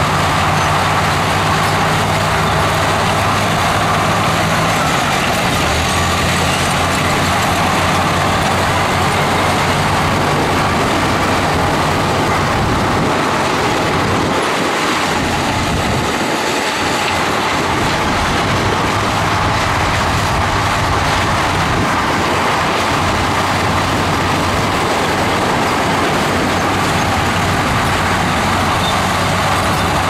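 Heavy diesel engine of construction machinery running steadily under a loud, hissing mechanical din. The low engine note drops away for a few seconds about halfway through, then returns.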